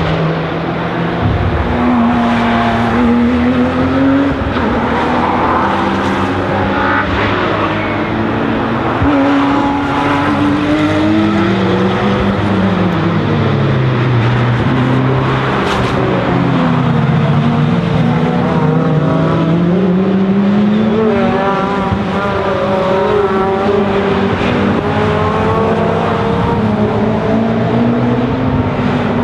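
Several race car engines passing through a run of bends, one after another and overlapping. Their pitch sweeps down and back up as the cars lift off and accelerate again, with a long fall and rise in the middle.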